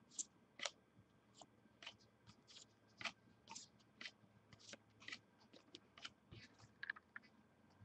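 Football trading cards being flipped through one by one from a freshly opened pack: faint, irregular light ticks and slaps of card stock, a few each second.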